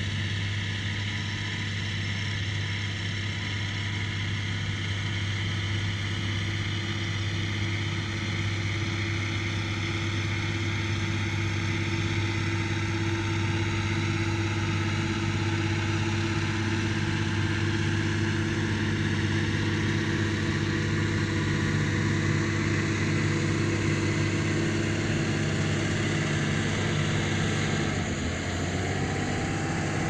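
John Deere 6150R tractor's six-cylinder diesel engine running steadily under load while pulling a plough through the field. It grows a little louder in the middle as the tractor comes nearest, and its note shifts near the end.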